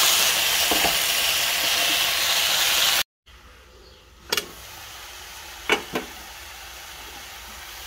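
Wet pumpkin shoots sizzling and steaming in a hot pan, a loud steady hiss that cuts off suddenly about three seconds in. After that it is much quieter, with a few sharp clinks of a steel lid being handled on the pan.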